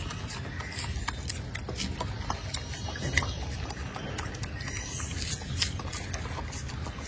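Golden snub-nosed monkeys eating chopped fruit and greens: scattered small crunches and clicks over a steady low rumble, with two sharper clicks about three and five and a half seconds in.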